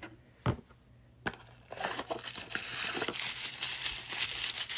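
A single tap, then dense crinkling and rustling of packaging as an advent-calendar compartment is opened and its contents unwrapped.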